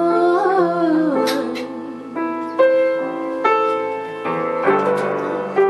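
A woman's voice holds a last sung note that bends in pitch over piano accompaniment, ending about a second in. The piano then plays on alone in slow, separate chords.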